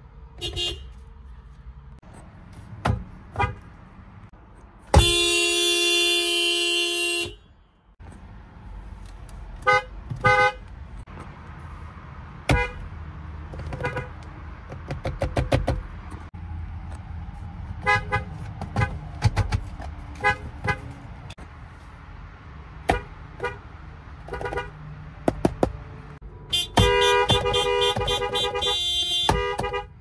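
Car horns of several Toyota vehicles sounding in turn: many short taps and toots, some in quick runs, and two long blasts of two to three seconds each, about five seconds in and near the end.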